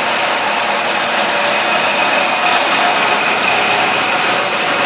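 Grob 4V-18 vertical bandsaw running: a steady, even whir with a few constant tones above it.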